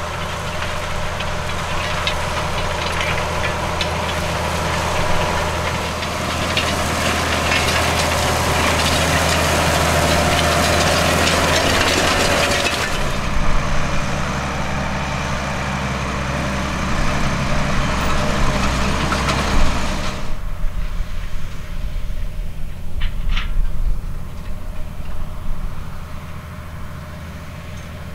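New Holland T9.560 tractor's diesel engine pulling under load, with the steady hiss and rattle of a disc harrow working through stubble. About halfway through the hiss thins. For the last part only a quieter low engine rumble remains.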